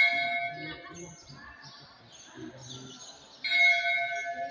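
Hanging temple bell struck twice, at the start and again about three and a half seconds in, each stroke ringing out with a clear, bright tone and slowly fading. Faint voices murmur between the strokes.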